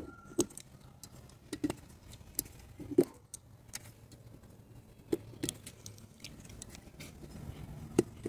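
Irregular light clicks and taps of small metal parts handled on a VW AP aluminium cylinder head as valve stem seals are pressed onto the valve stems by hand, with sharper knocks about three seconds in and near the end.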